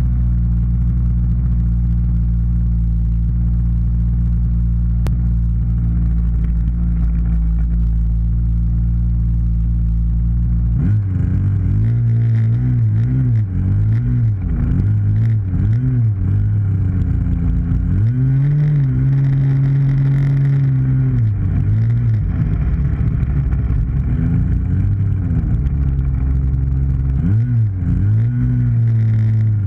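Model airplane engine running close-up: a steady idle for about the first eleven seconds, then the throttle is blipped up and down in a series of revs, held at higher power for a few seconds around the middle, with more quick revs near the end.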